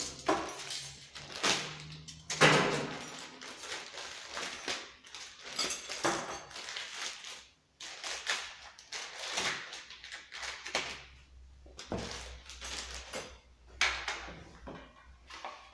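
Handling noises: a plastic parts bag rustling and crinkling, with irregular knocks of items being handled on a wooden bench, the loudest about two and a half seconds in.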